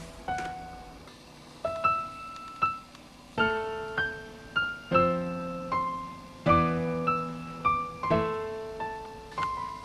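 Slow, gentle piano music: single notes and soft chords struck one to two a second, each ringing and fading.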